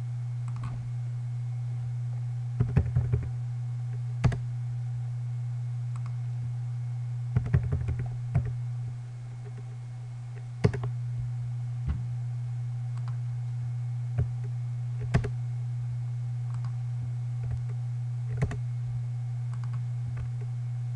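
Computer keyboard typing: short bursts of keystrokes early on, then single clicks spaced a second or two apart. A steady low hum runs underneath.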